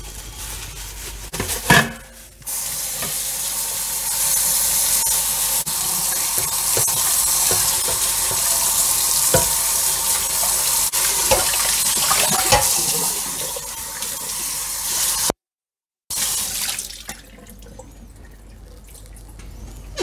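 Kitchen tap running full onto a stainless steel pot in a sink as it is rinsed and rubbed with a sponge: a steady splashing hiss that starts about two seconds in after a sharp knock, with a few knocks along the way. Near the end the sound cuts out for a moment and comes back much quieter.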